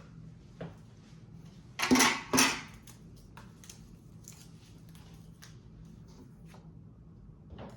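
Packaging being handled: two short, loud rustling scrapes about two seconds in, with a few faint clicks and taps around them.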